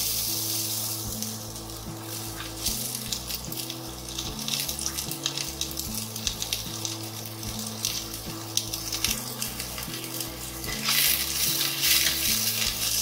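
Sliced onions sizzling and crackling in hot oil in a karahi. Near the end a spatula starts stirring them and the frying gets louder.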